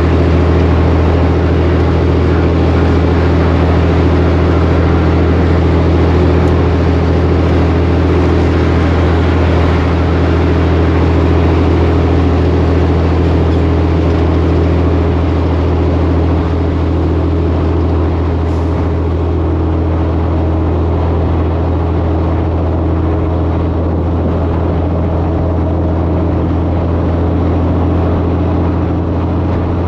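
Heavy diesel truck engine running steadily under way, a constant low drone with road noise. It eases slightly about halfway through.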